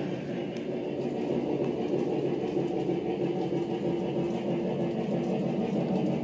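Lionel O-gauge model train rolling on FasTrack, a steady rumble of wheels and motors that grows slightly louder about a second in.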